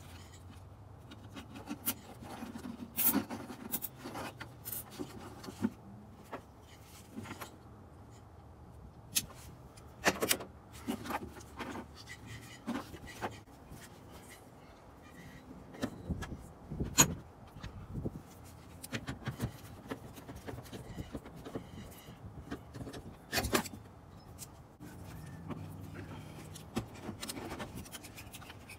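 Irregular clicks, rattles and plastic knocks of hands handling wiring and parts in a truck's engine bay, with a few sharper knocks such as the one about two-thirds of the way through.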